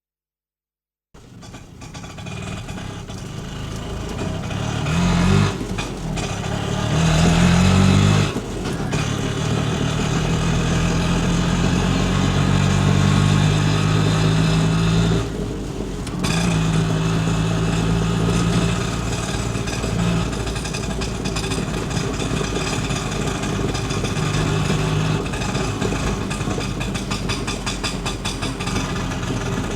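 Auto rickshaw engine starting about a second in and then running, revved up a couple of times early on with brief drops in level around eight and fifteen seconds in.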